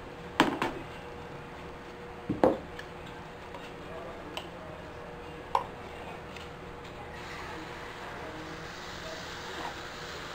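Metal cooking utensils clanking against the kadai and the batter bowl a few times in the first six seconds, the first the loudest. Then, from about seven seconds in, a steady sizzle of hot oil as semolina batter is ladled into the kadai.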